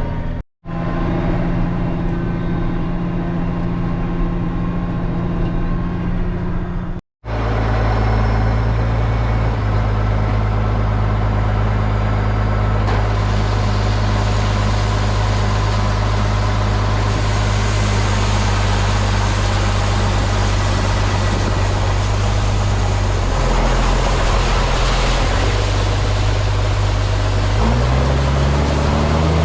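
Tractor engine running steadily under load, cut off abruptly twice by edits, with the engine speed stepping up near the end.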